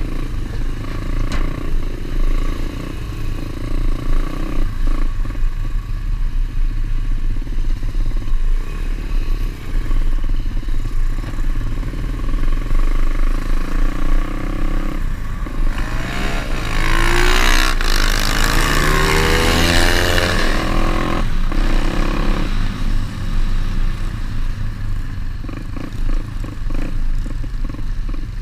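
Pit bike's single-cylinder engine running under way off-road, with rattling from the bike over rough ground. Past the middle, for about five seconds, the engine gets louder and its revs rise and fall sharply.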